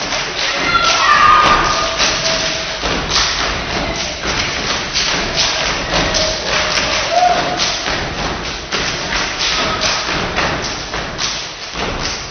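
A step team stomping on a stage and striking their hands and bodies in unison, a fast, steady percussive rhythm of thuds and slaps.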